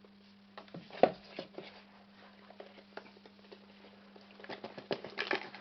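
Faint handling noises: scattered small clicks and knocks, a sharper one about a second in and a quick run of them near the end, as a camera box and its contents are handled. A steady low electrical hum runs underneath.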